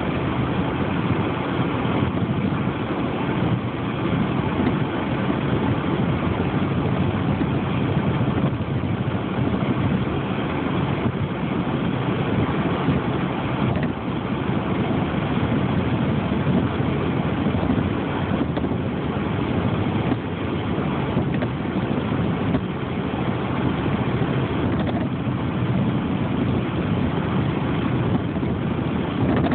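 Steady rumble of a motor vehicle running, engine and road noise, holding even throughout with no distinct knocks or changes.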